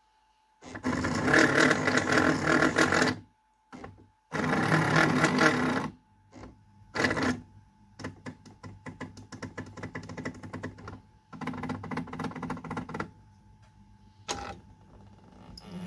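Metal lathe apron and carriage handwheels being turned by hand, the gearing clattering in rapid ticks. The clatter comes in spells of one to two seconds, loudest in the first two, with lighter spells after.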